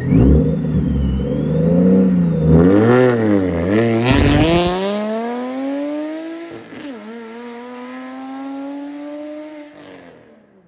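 Supercharged Subaru EZ30 3.0-litre flat-six pulling away hard from a standstill: the revs waver up and down at the launch, with a high supercharger whine that follows them and a short noisy burst about four seconds in. It then climbs steadily through a gear, drops at a shift about two-thirds of the way in, climbs again and fades as the car drives off.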